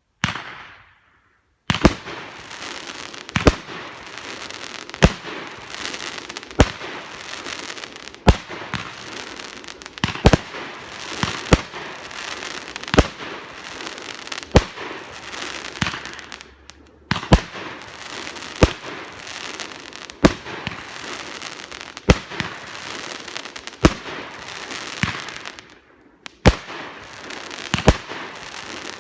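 Hardcore Pyro Alien Planet firework firing a volley: sharp bangs about every one and a half seconds over continuous crackling, after a short burst at the start and with two brief lulls.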